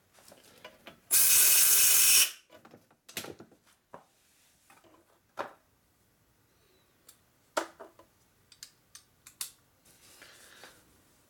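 A loud, steady hiss about a second in, lasting just over a second. After it come scattered light metal clicks and taps as a Lock-N-Stitch repair pin is set into a freshly tapped hole in a cracked cast-iron Ford flathead four-cylinder block.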